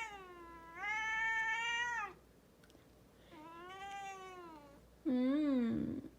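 A domestic cat meowing over and over: long meows that rise and fall in pitch, three in a row after the tail of another, the last one lower and louder. These are the cat's scolding protests at a sneeze.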